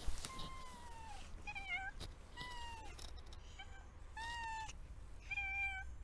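American Bobtail cat meowing about six times, in short separate calls, the first and longest one falling in pitch.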